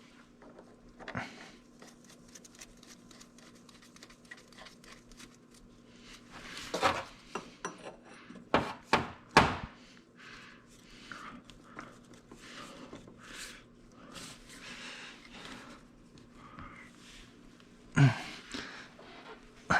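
Hand tools clicking and clinking on metal while the oil drain plug is threaded back in and tightened, with a few louder knocks about halfway through and another near the end.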